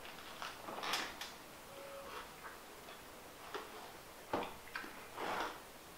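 Quiet chewing of a sandwich: soft mouth clicks and a few short breathy puffs, scattered irregularly.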